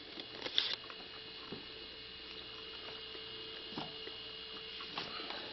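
A steady faint electrical hum, with a quick cluster of light clicks about half a second in and a few single knocks later, like handling of the instrument's open case.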